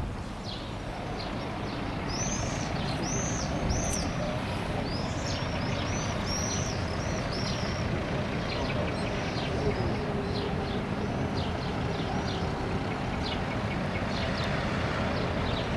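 Steady outdoor rumble, like wind on the microphone, with birds chirping over it: a quick run of arched chirps from about two seconds in, then scattered short chirps later.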